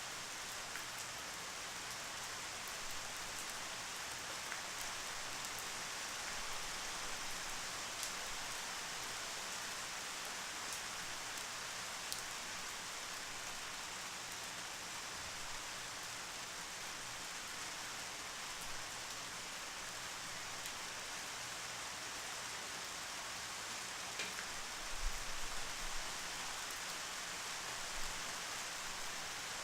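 Steady rain falling, an even hiss with scattered individual drop ticks. Near the end come a few low thumps.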